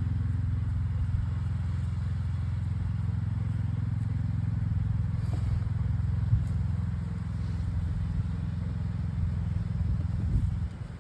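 Steady low rumble of an engine running, with a single sharp knock about six seconds in.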